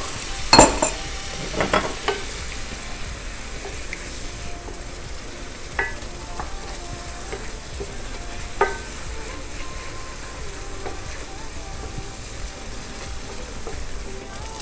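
Mushroom sauce sizzling in a frying pan while it is stirred, with a few sharp knocks of the utensil against the pan, the loudest within the first two seconds.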